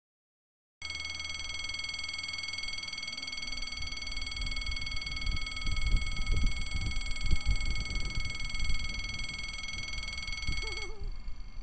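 Level-crossing warning bell ringing steadily while the red-and-white barrier lowers. It starts abruptly about a second in and cuts off suddenly near the end, once the barrier is down. Wind rumbles on the microphone underneath.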